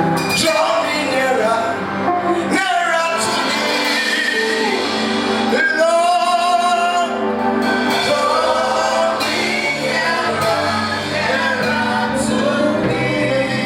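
Live gospel music: voices singing a melody over steady instrumental backing.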